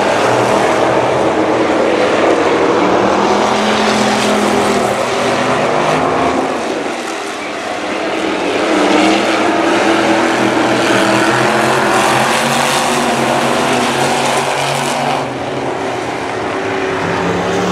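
A pack of dirt-track street stock cars' V8 engines racing around the oval, engine notes rising and falling as the cars lap. The sound is loud, dipping briefly about seven seconds in before swelling again.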